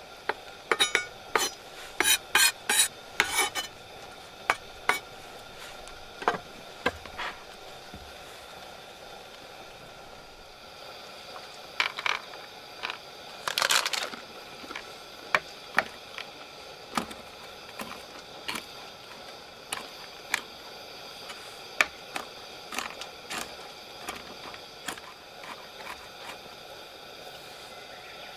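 Metal utensils and cookware clinking and scraping in irregular knocks over a steady low hiss. There is a quick run of clinks in the first few seconds, another about halfway through, and scattered single taps after that.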